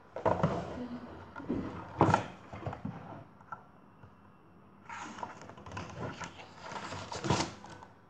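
A picture book being handled and its page turned: paper rustling and sliding, with a couple of sharp knocks from the book, about two seconds in and again near the end.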